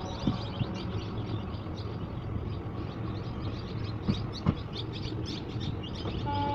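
Small birds chirping and twittering over a steady low rumble, with two sharp clicks about four seconds in. Near the end a train horn starts sounding a held tone.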